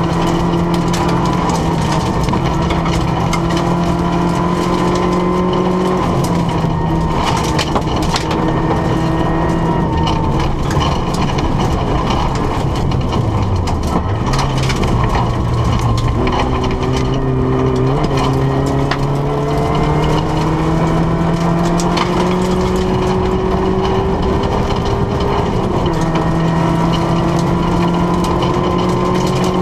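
Rally car engine heard from inside the cabin, pulling hard along a gravel stage. Its pitch climbs and drops back at each gear change, and it slows and picks up again about halfway through. Loose stones crackle and clatter against the underside throughout.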